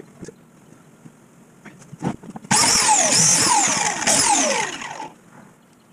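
Handheld biscuit joiner switched on about two and a half seconds in and run for roughly two and a half seconds, its whine dropping in pitch several times as it cuts biscuit slots into a pine board's edge for gluing up a tabletop, then winding down. Before it, faint clicks of handling the boards.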